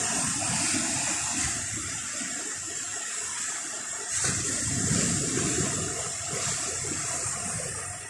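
Baltic Sea surf breaking and washing up a sandy beach in rough weather, a steady rushing with a louder wash about four to five seconds in.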